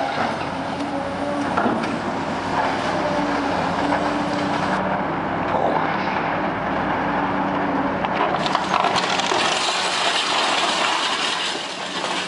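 Caterpillar excavators, a 345CL among them, demolishing a brick building: diesel engines and hydraulics run steadily while brick and debris crash down. A run of sharp clattering knocks comes in the last few seconds.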